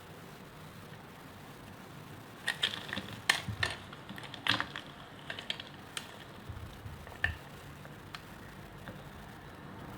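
A knife cutting into dry soap, giving a run of crisp, crackling clicks that starts about two and a half seconds in and stops about seven seconds in.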